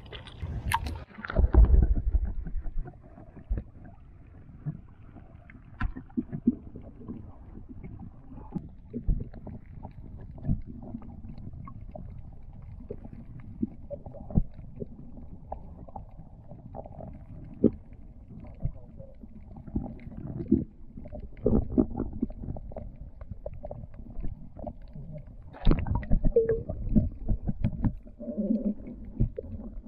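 Muffled underwater sound picked up by a camera held below the sea surface: a low water rumble with scattered knocks and thumps. There is a loud rush about a second and a half in and another burst of knocks near the end.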